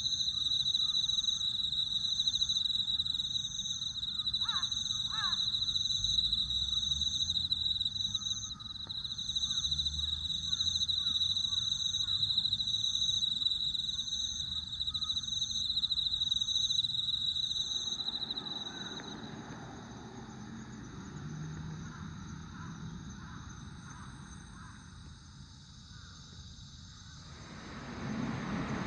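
Chorus of night-singing insects: one continuous high trill with a second insect chirping in even pulses above it, and two short falling calls about five seconds in. A little past halfway the main trill fades out, leaving a low, distant rumbling haze under fainter insects.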